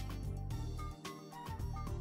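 Background music with a steady beat, a bass line and a melody on top.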